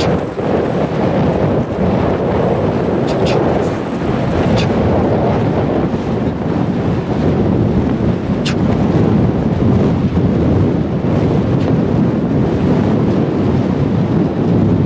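Wind buffeting the microphone as a steady, loud rushing, broken by a few brief sharp clicks.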